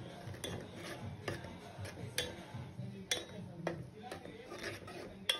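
A metal ladle stirring noodles in a metal pot, clinking and scraping against the pot's sides in irregular knocks about every half second.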